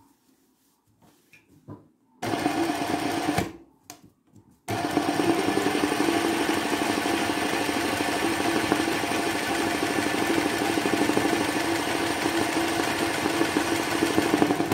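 Sewing machine doing free-motion embroidery stitching. After a couple of seconds of near quiet with faint clicks, it runs at speed in a short burst of about a second, stops briefly, then runs steadily from about five seconds in.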